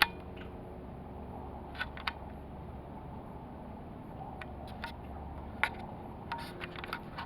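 Steady low background noise with a handful of short, faint clicks scattered through it, typical of a camcorder being handled while it records.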